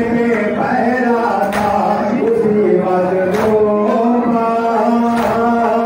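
A male voice chanting a nouha, a Shia mourning lament, while a crowd of mourners beats their chests in unison (matam). The chest strikes land together three times, about every two seconds.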